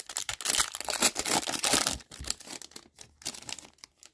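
Wrapper of a hockey card pack crinkling and tearing as it is ripped open: a dense crackle, loudest in the first two seconds and dying away after about three.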